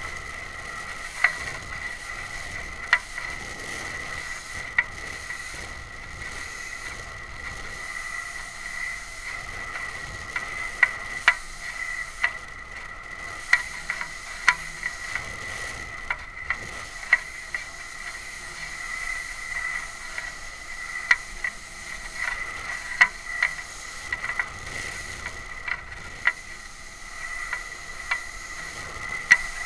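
Sound picked up by a small camera riding on a two-stage high-power rocket in flight: a steady high whine with a soft rush of air beneath it, broken by irregular sharp clicks and knocks from the airframe.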